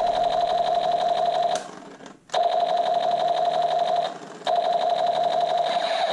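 Battery-powered lights-and-sound toy space blaster rifle playing its electronic sound effect through its small speaker: a fast-pulsing buzzy tone on one steady pitch. It runs in three long bursts, breaking off briefly about one and a half seconds in and again about four seconds in.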